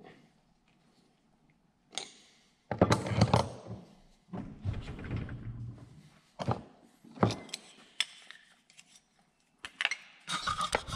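Tools and metal parts being handled and set down on a workbench: irregular clunks, knocks and rattles starting about two seconds in.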